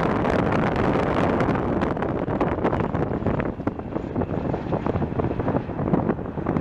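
CH-47J Chinook tandem-rotor helicopter flying low past: loud, steady rotor chop mixed with turbine noise, easing slightly in the second half.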